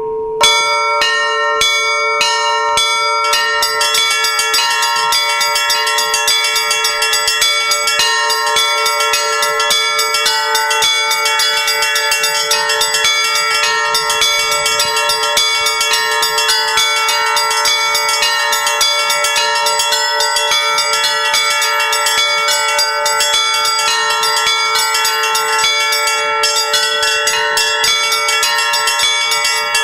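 Russian Orthodox church bells rung by ropes tied to their clappers: a continuous, rapid peal of several bells of different pitches, beginning with a strike about half a second in.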